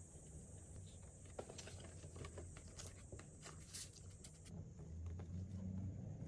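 Faint, scattered small clicks and taps over a low steady hum.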